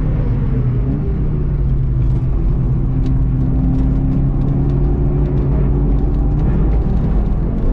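Golf GTI TCR race car's turbocharged four-cylinder engine heard from inside the cabin, picking up about a second in and then holding a steady note through the corner. A constant low rumble of tyres and road runs underneath.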